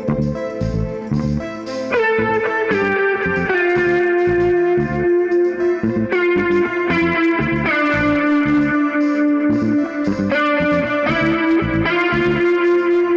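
A live band playing a funk-jazz groove: a lead instrument holds long notes that step to new pitches every second or two, over a steady bass and drum beat.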